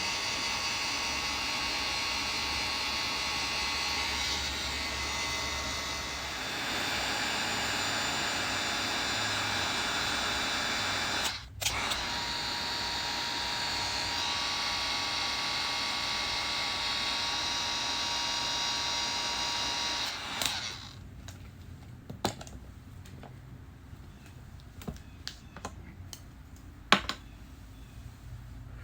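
A small electric appliance runs with a steady whir for about twenty seconds, broken once by a short dropout near the middle, then stops. Afterwards there are only faint scattered clicks and taps of handling.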